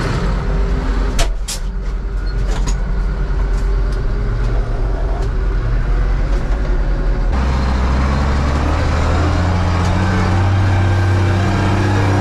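Tractor diesel engine running, heard from inside the cab, with a few sharp clicks and knocks between about one and three seconds in. About seven seconds in the sound cuts to a louder, steadier engine note: the Zetor 16145's turbo-intercooled diesel pulling through the field.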